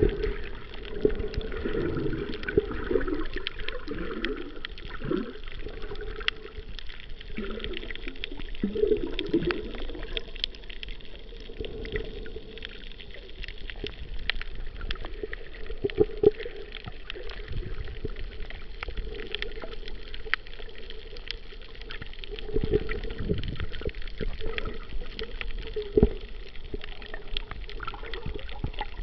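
Muffled underwater sound from a camera held under water while snorkeling: water gurgling and sloshing around the housing, with irregular falling swoops and many faint scattered clicks.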